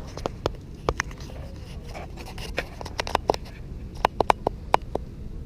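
Irregular sharp clicks and taps, coming in a quick cluster about four seconds in, over a steady low rumble.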